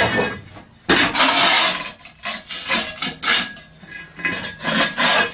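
Flat steel bar scraping and sliding across the steel top plate of an anvil stand, in about three long rasping strokes with a faint metallic ring.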